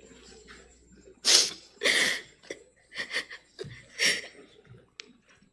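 A woman sniffing sharply and breathing hard close to a microphone, about five short sniffs and catches of breath with pauses between: the sound of someone crying.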